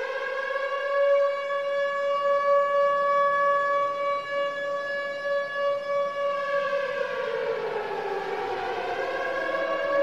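Tornado siren sounding as a hockey goal horn: it holds a steady wailing tone, then its pitch slides down about seven seconds in and climbs back near the end.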